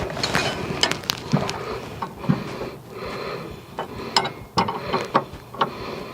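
Hand tools working on the front stabilizer bar hardware under a car: irregular metal clicks and knocks, with some ratchet-like clicking.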